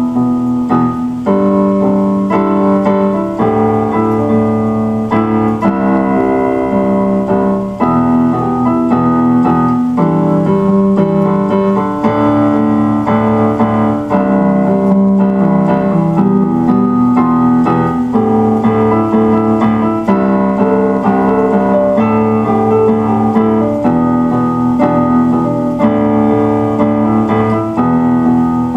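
Electric keyboard playing slow piano chords over a bass line, each chord held for a second or two before the next.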